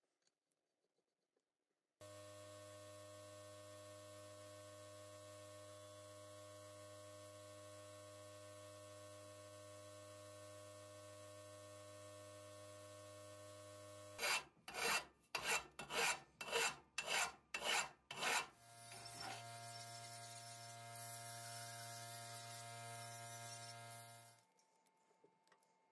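Sandblasting cabinet at work on a small metal part. After about two seconds of near silence, its motor starts with a steady hum. Later the blast gun fires in about nine short hissing bursts, roughly two a second, then blasts continuously for about five seconds and cuts off.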